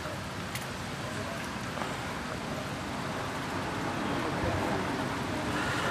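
Steady outdoor background noise, a low rumble and hiss, with a single faint click about half a second in.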